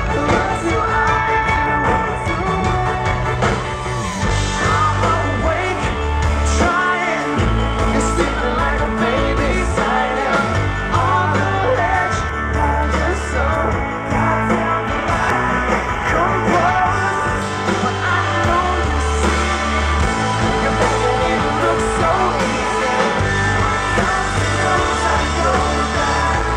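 Pop-rock band playing live: lead vocals over electric guitars, bass and drums.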